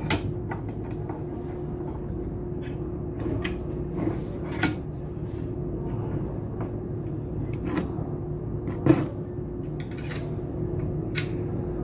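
Irregular metal knocks and clanks, about six of them, from hand tools working a submersible pump's parts apart; the loudest falls about nine seconds in. A steady hum sounds underneath.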